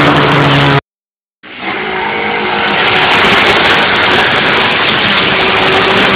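Race car engines running hard at high revs as cars come up the street, loud throughout. The sound breaks off suddenly for about half a second just under a second in, then the engines come back.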